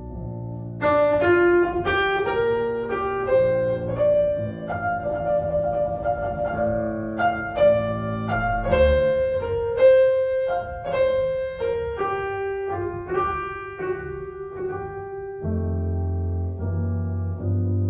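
Background piano music: a melody of single notes, each starting about every half second to a second, over low held notes that swell near the end.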